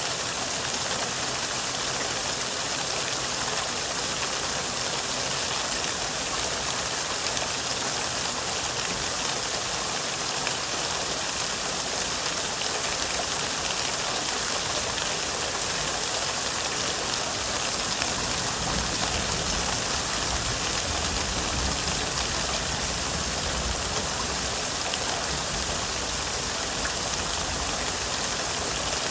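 Steady rain falling, an even hiss, with a low rumble coming up in the second half.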